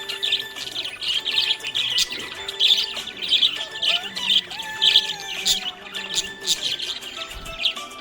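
Budgerigars chirping and warbling, a busy stream of rapid, high chirps that never pauses for long.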